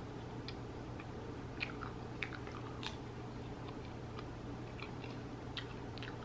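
Chewing a mouthful of caramel, peanut and chocolate coated popcorn: scattered faint crunches and wet mouth clicks over a steady low hum.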